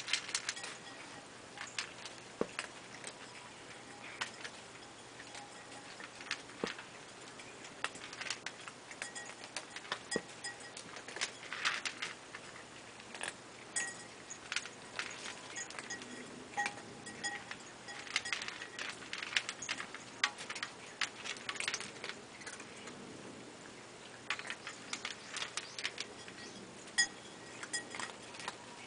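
Several cats eating together from one shallow dish: a steady patter of small irregular clicks and ticks from chewing and from mouths and paws knocking the dish.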